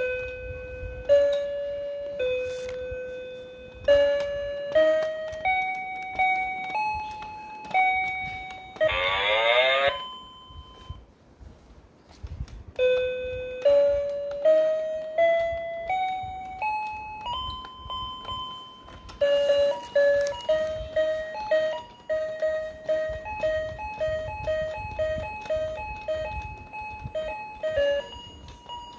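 Cow-shaped electronic toy piano played by pressing its keys: plain electronic beep notes, one at a time, stepping up the scale. A short warbling sound effect comes about nine seconds in, and a fast run of repeated short notes starts about nineteen seconds in.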